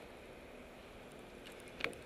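Bicycle rolling slowly over cobbles and pavement with faint steady street and wind noise, and a single short sharp knock near the end.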